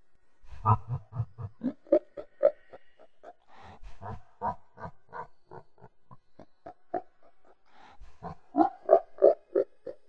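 A scary grunting creature voice: quick pitched grunts at about four a second, in three runs, with short gaps after the first and second runs.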